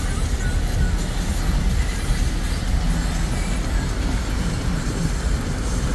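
Vehicle cabin noise while driving through deep flood water in heavy rain: a steady low rumble of the engine and tyres pushing through water, with an even hiss of rain and spray over it.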